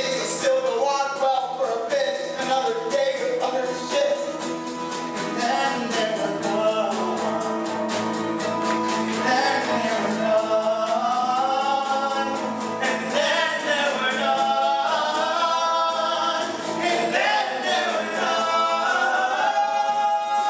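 Male ensemble singing a rock musical number live, backed by a band with a steady beat. Near the end the music settles onto a long held chord.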